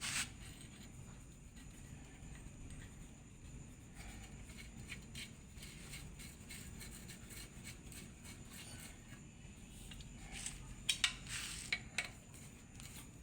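Steel transmission parts being handled and fitted by hand: a faint low hum with a few light metal clicks, then near the end a quick cluster of sharp metallic clicks and a short scrape.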